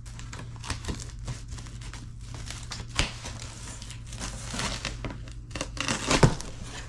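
Shipping packaging being opened by hand: crinkling, rustling and tearing with scattered sharp clicks, busier and louder in the second half.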